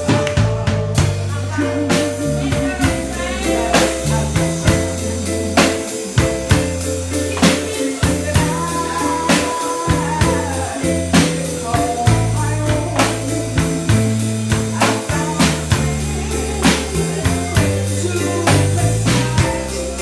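A woman singing into a microphone over a full band accompaniment with a steady drum beat and a bass line.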